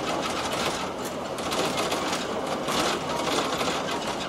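Cabin noise of the Sonic limited-express electric train running on the line: a steady rumble with light clicking and rattling from the wheels passing over the track.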